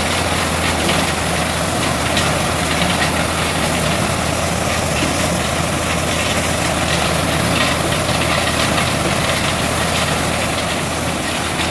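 Ford tractor engine running at a steady speed, driving a corn sheller that is shelling ears of maize: a constant loud mechanical din with faint scattered rattles.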